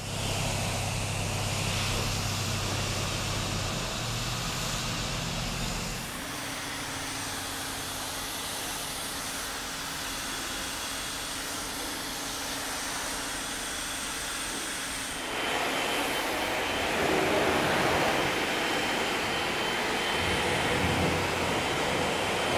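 Car-washing equipment running: a steady motor drone with a rushing spray or air noise. The sound changes about 6 seconds in and again about 15 seconds in, when it gets louder.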